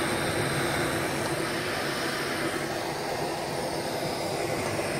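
Handheld blowtorch flame hissing steadily as it is held on a tray of apple-wood smoking chips to light them.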